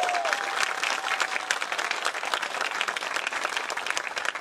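Theater audience applauding, with a few voices calling out during the first second or so.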